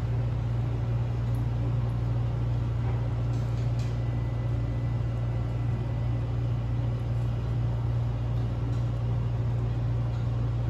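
A steady low mechanical hum, with a few faint crunches of cats chewing dry kibble.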